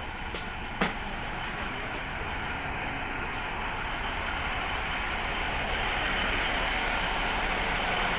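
Standing diesel passenger train running at the platform: a steady rushing noise that slowly grows louder. Two sharp clicks come in the first second.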